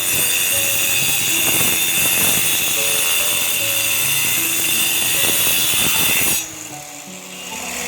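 Electric power tool running steadily at high speed with a whining, grinding noise, cutting off sharply about six seconds in, over background music.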